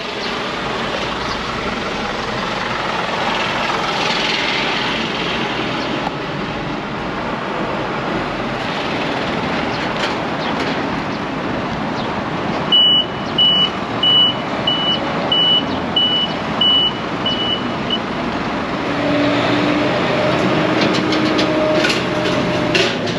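Flatbed car-carrier truck backing up with its engine running, its reverse alarm beeping eight times in even succession around the middle. Near the end, a steady whine that steps in pitch as the bed's hydraulics tilt and slide the bed down.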